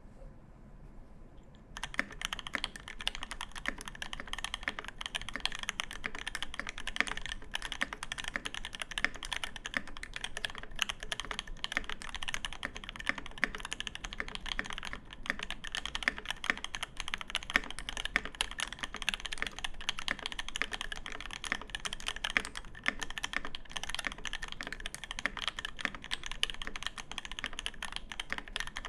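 TOFU96 mechanical keyboard with a brass plate, lubed C³ Tangerine 67g linear switches and GMK keycaps, typed on quickly and continuously; the typing starts about two seconds in.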